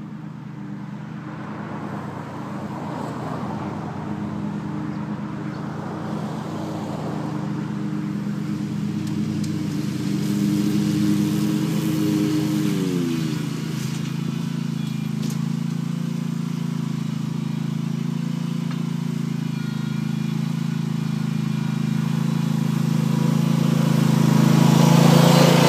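2011 Hustler Super Z zero-turn mower's engine running at speed, a steady hum that grows louder as the mower closes in. About halfway through, the engine note drops a step in pitch, then holds steady.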